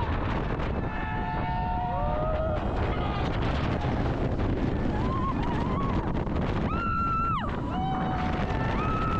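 Rushing wind buffeting the microphone on a moving roller coaster, with riders letting out several high-pitched screams. The longest and loudest scream comes about seven seconds in, and more follow near the end.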